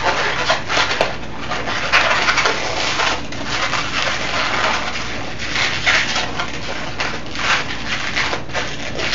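Latex twisting balloon being pinch-twisted and handled by hand: an irregular run of short squeaky rubs and scrunches as the rubber twists against itself and the fingers.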